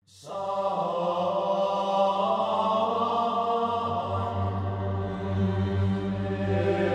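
Background music of sustained held notes over a low drone, fading in at the very start; the low drone grows stronger about halfway through.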